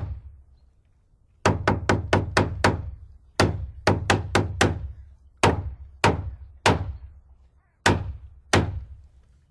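Hammer blows, each with a short ringing thud. A strike opens the sequence, then a quick run of six, a run of five, and slower single strikes spaced about half a second to a second apart.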